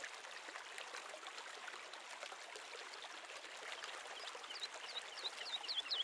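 Soft running water like a stream. About four and a half seconds in, a run of quick downward-sliding chirps, about three a second, starts and grows louder.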